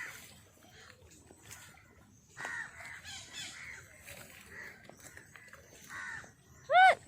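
A crow cawing: a few faint calls, then one loud caw near the end.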